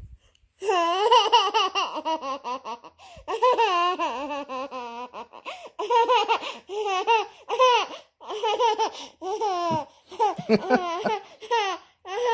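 A young child laughing hard in repeated high-pitched bouts, with short breaks for breath between them.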